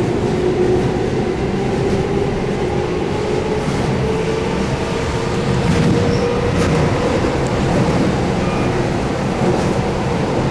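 Keihan 8000-series electric train running between stations, heard inside the car: steady wheel and rail noise under the hum of its DC traction motors. A single motor tone climbs slightly in pitch over the first few seconds and then holds.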